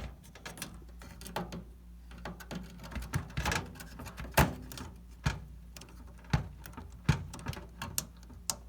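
Irregular small clicks and taps of RAM sticks being handled and pushed into motherboard memory slots, none of them the distinct latch click expected when a module seats. A steady low hum runs underneath.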